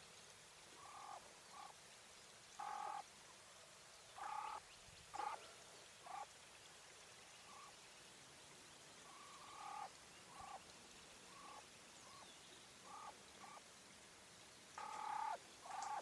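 Coturnix quail hen giving short, soft call notes, about fifteen of them scattered irregularly, some in quick pairs, the loudest a few seconds in and near the end.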